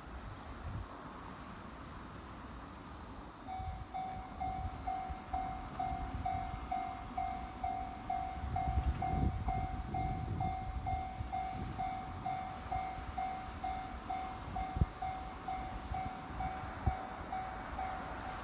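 Railway level-crossing alarm starts about three and a half seconds in: an electronic bell tone repeating about twice a second, warning of an approaching train. A low rumble runs underneath.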